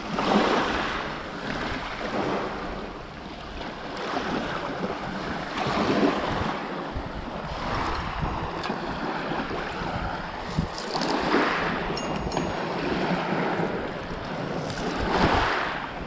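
Small sea waves washing onto a pebble beach, surging and ebbing every few seconds, with wind buffeting the microphone.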